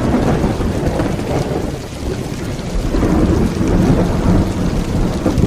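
Loud, dense rushing and rumbling noise with crackle throughout, cut off abruptly near the end.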